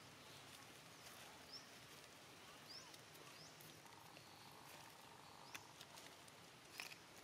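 Near silence: faint outdoor ambience with a few brief, faint high chirps and a few small clicks.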